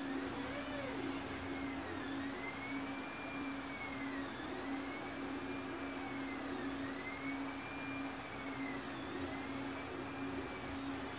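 Steady whir and hum from a powered-up home-built 3D printer's electronics and its ATX power supply, with a faint high tone that rises and falls about every two seconds.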